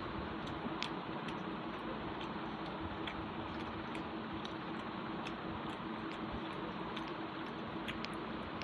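Eating by hand: faint chewing and mouth clicks, with light ticks of fingers mixing rice on a steel plate, scattered about every half second over a steady hiss and low hum.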